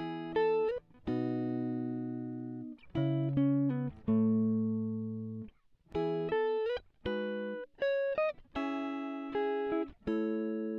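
Background music: a plucked-string instrumental playing separate notes and short held chords, each struck and then fading away.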